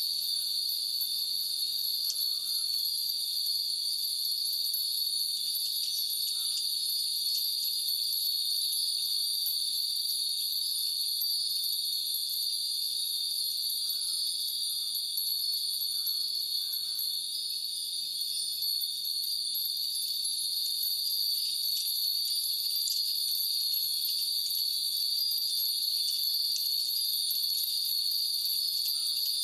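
Many Japanese furin wind chimes tinkling together without a break in the breeze, over a steady high insect drone.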